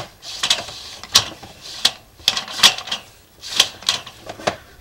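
Sewer inspection camera's push cable and reel clicking and clattering as the camera is fed down a drain line. The sharp clicks come at an uneven pace, about one or two a second.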